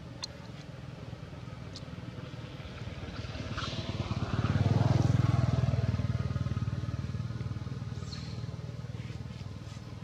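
A motor vehicle driving past, its engine growing louder to a peak about five seconds in and then fading away.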